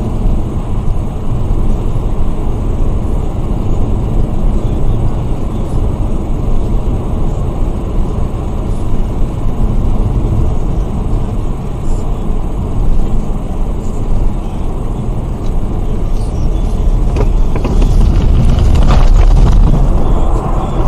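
Car road and engine noise heard through a dashcam inside the cabin, a steady low rumble. Starting about three seconds before the end it grows louder, with rattling and crackling as the car goes off the icy road into the snow.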